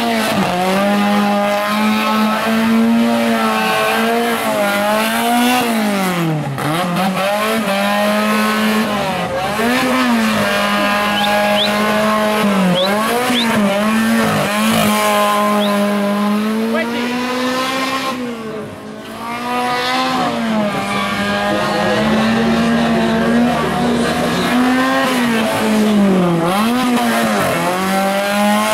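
Tuned Fiat 127's four-cylinder engine held at high revs through a tight gymkhana run, the revs dropping and climbing again over and over as the driver lifts and gets back on the throttle, briefly quieter about two-thirds through. Tyres squeal at times in the turns.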